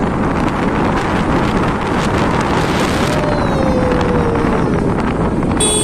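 Wind buffeting the microphone over the steady noise of a moving road vehicle, with a faint whine that slowly falls in pitch about halfway through.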